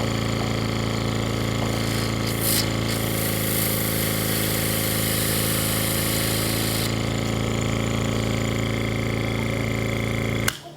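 SCU 70 12-volt oil-free diaphragm hookah compressor running with a steady, even hum. A louder hiss joins in for a few seconds around the middle. The compressor stops suddenly just before the end.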